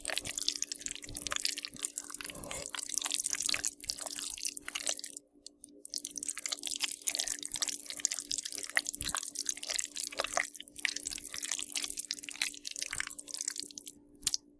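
Zombie-feeding horror sound effect: a dense run of wet squelching, smacking and dripping, like flesh being chewed and torn, over a steady low hum. It breaks off briefly about five seconds in.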